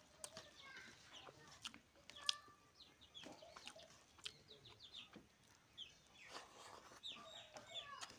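Chickens clucking softly, with many short, high chirps scattered through. A sharp click about two seconds in is the loudest sound.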